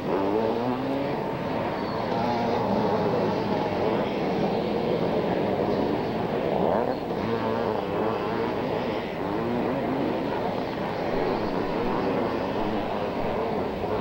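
Two-stroke 500cc motocross bikes racing, several engines revving up and down over one another as they accelerate and pass.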